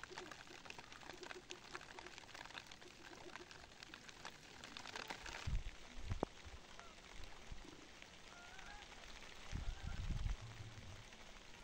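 Chickens scratching and pecking among dry leaves and dirt: a faint, dense crackling rustle, with a few soft short chirps later and a couple of low thumps.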